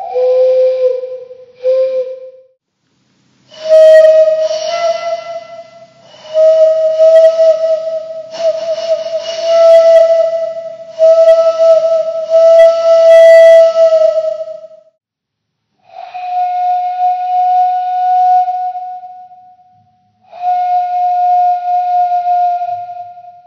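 Made-up dinosaur calls for the fictional tyrannosaurid Feroxosaurus tyrannus: long, whistle-like, steady-pitched tones with overtones. A short call trails off near the start. Then comes a run of about five drawn-out calls given as a distress call, and then two longer, slightly higher steady calls given as a territorial call.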